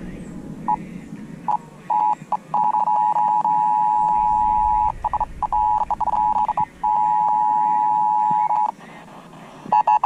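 Emergency Alert System attention signal, a steady two-note tone, played through a portable TV's speaker during a Required Monthly Test relay. It keeps dropping out and cutting back in because the TV station is being received weakly. The tone stops shortly before the end.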